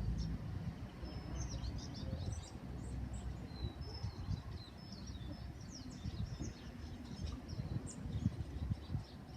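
Small birds chirping: many short, high calls and quick whistles scattered throughout, over a steady low rumble.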